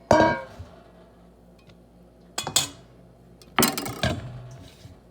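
Dishes and cutlery clinking and clattering in the kitchen: a sharp ringing clink at the start, a quick double knock a couple of seconds later, and a longer ringing clatter near the end.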